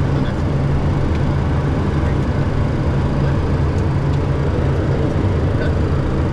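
Steady cockpit noise of a Cessna Citation II twin-turbofan business jet in flight on approach: a constant rush of air over the airframe mixed with a steady low engine hum.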